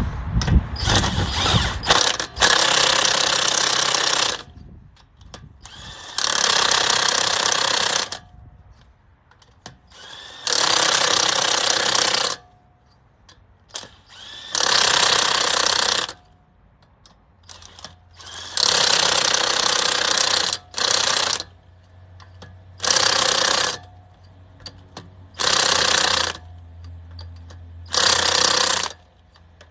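Impact wrench driving lug nuts tight through a torque stick as the wheel goes back on. It hammers in about eight bursts of one to two seconds, with short pauses between them, one nut after another.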